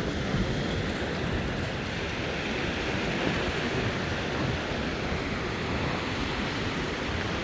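Stormy sea surf washing on the shore, a steady rushing noise, with wind buffeting the microphone.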